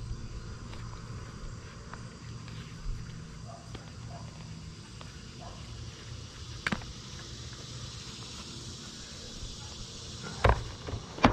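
Insects chirring steadily over a low rumble, with scattered clicks and knocks from a tree climber's gear and handling on the trunk; two sharp knocks near the end are the loudest.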